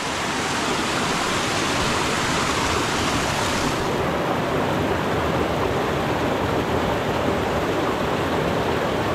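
Water rushing over rocks into a rock pool at a gorge cascade, a steady, even rush; the hiss softens a little about four seconds in.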